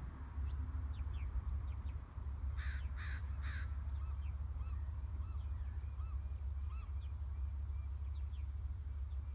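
A crow cawing three times in quick succession about two and a half seconds in, with short chirps of other birds scattered through, over a steady low rumble.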